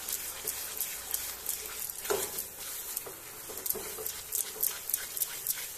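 Silicone spatula stirring thick, sugary cooked apple halwa in a nonstick pan: quick repeated strokes, about three a second, with one slightly louder stroke about two seconds in.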